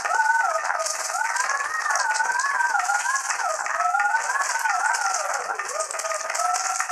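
Cartoon soundtrack: a wavering tune that slides up and down throughout, over a dense rattling hiss.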